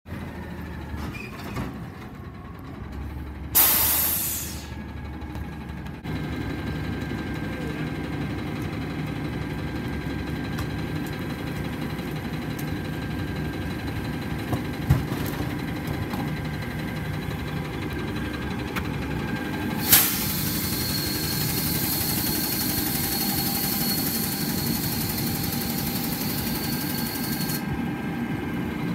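Natural-gas Peterbilt garbage truck with an Amrep body running at work. A short sharp air hiss comes a few seconds in, a single knock about halfway, and a long steady hiss starting suddenly about two-thirds in that cuts off a few seconds later.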